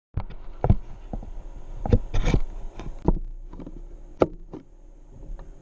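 Handling noise: a camera being gripped and moved close to its microphone, with irregular knocks, clicks and rubbing. There is a sharp click about four seconds in.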